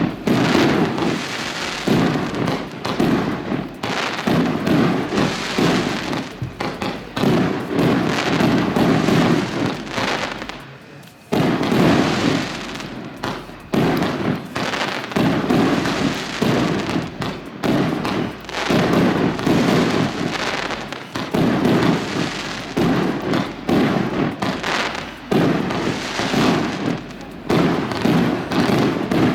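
Consumer aerial fireworks shots launching and bursting one after another in a dense run, with a short lull about eleven seconds in.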